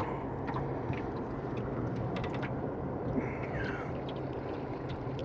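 Steady low hum and rumble of a boat on the water, with a few light clicks and taps.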